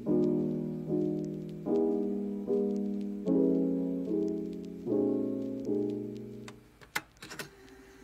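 Background piano music: soft chords struck about every 0.8 s, each fading away, until the music stops about six and a half seconds in. A few faint clicks follow near the end.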